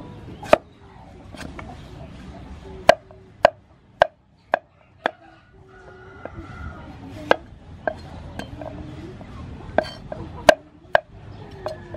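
Steel cleaver chopping green papaya into chunks on a wooden chopping board: about a dozen sharp, irregular knocks of the blade striking the board, with a short pause about halfway through.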